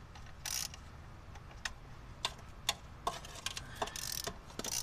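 Irregular sharp metal clicks and taps of hand tools and bolts being handled on a truck engine's top end. There is a short scrape about half a second in and a quicker run of clicks near the end.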